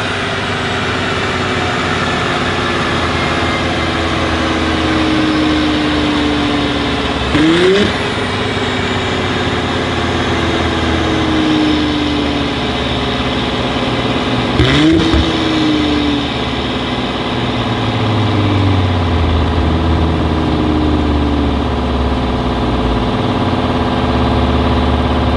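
Audi S4 B9's turbocharged V6 running through an Armytrix full exhaust on a dyno, revved up sharply twice, about a third and two thirds of the way in, each time the pitch then falling slowly over several seconds. Near the end it settles into a steady, lower-pitched run.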